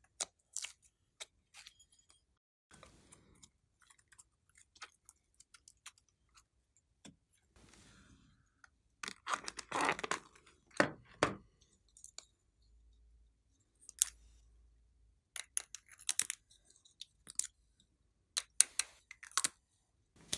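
Crinkling plastic piping bag and squishy slime being squeezed out of it, with scattered small clicks and taps and a denser burst of crackling about halfway through.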